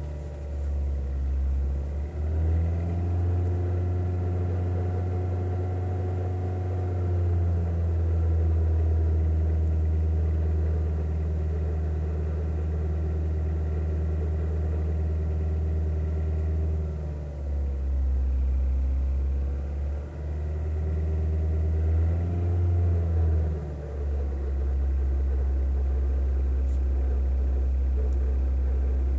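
Kia Ceed JD engine running, held at raised revs for about fifteen seconds, dropping back to idle, then revved briefly once more before settling to a steady idle. The engine is being run to show an extraneous noise.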